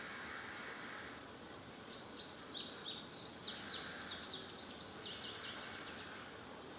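A small songbird twittering: a quick run of high chirps from about two seconds in until past the middle, over a steady background hiss.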